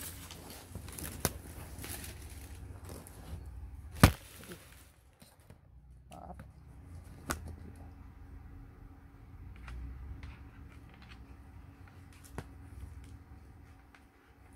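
Handling noise: low rustling and rubbing with scattered sharp clicks, one much louder click about four seconds in, as the laptop and its charger cable are handled.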